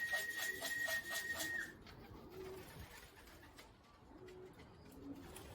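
Pigeons cooing, about three short, soft low coos. For the first second and a half a louder high steady tone with a rapid pulsing under it sounds, then cuts off suddenly.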